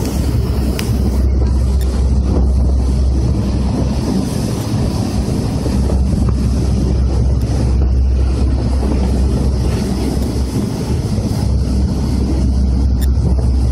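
Loud, steady rush from a Star Line hydro-jet ferry running at speed: its waterjet rooster tail and wake churning behind the boat, under a deep rumble and heavy wind buffeting on the microphone.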